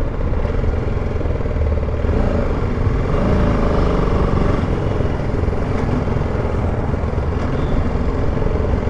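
A BMW G310 GS's single-cylinder engine runs steadily as the motorcycle rides at low speed through car traffic, with road rumble underneath and a little louder from about two seconds in.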